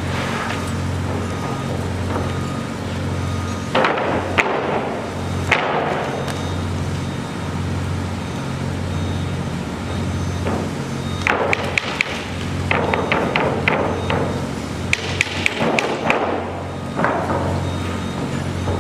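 Construction-site machinery runs with a steady low hum that pulses about once a second. Several sharp knocks and clanks come a few seconds in, then short runs of rapid clicking or tapping later on.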